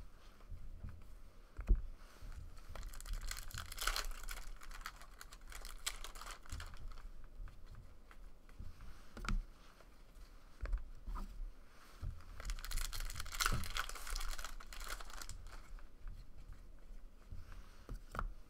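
Trading cards being slid through and handled: papery rustling and crinkling in two stretches, the first a few seconds in and the second past the middle, with a few soft knocks between them.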